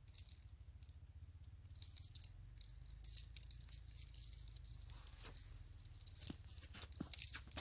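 Small ice-fishing reel being clicked a little at a time while jigging a bait up from the bottom: faint, irregular ticks and crackles over a low steady hum.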